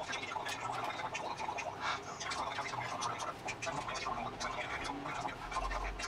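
Dress fabric rustling and scraping as it is handled and spread over a sewing machine table: a dense stream of irregular soft scratches and rustles.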